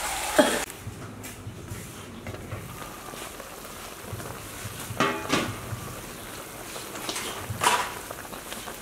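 A large metal soup pot being handled over a wood fire: a loud clatter at the start, then two brief metal clinks, about five seconds in and near the end, over a steady low background.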